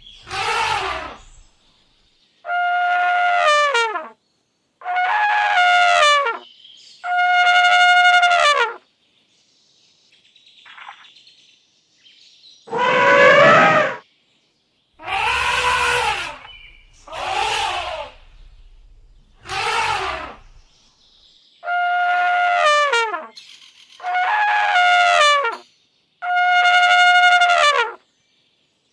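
Elephants trumpeting: about a dozen separate calls, each a second or two long with short silent gaps between them. Most hold a steady pitch and drop off at the end; a few are rougher.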